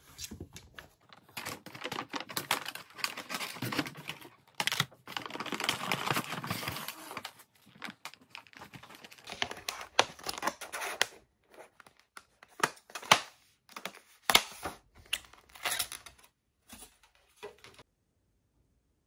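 Crinkly packaging being torn and crumpled in a dense run of crackling for several seconds, then handled in scattered short crinkles and clicks that stop near the end.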